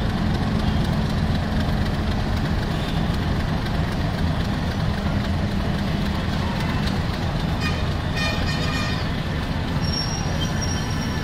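Diesel-electric locomotive running steadily as it hauls a passenger train slowly past, a low engine drone throughout. A few brief high-pitched squeals come about eight seconds in and again near the end.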